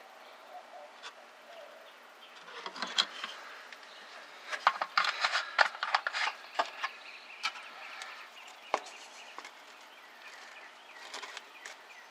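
Plastic brake fluid bottle and master cylinder reservoir being handled while the reservoir is topped off: a run of sharp clicks, taps and rustles, busiest from about two and a half to nine seconds in.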